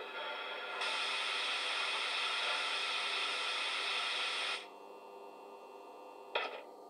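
Model-train sound decoder running an ESU sound set up for a Southern slam-door EMU, heard through the small speaker of an OO gauge MLV. A loud air hiss starts about a second in and cuts off suddenly after about four seconds, over a steady hum. A single sharp click comes near the end.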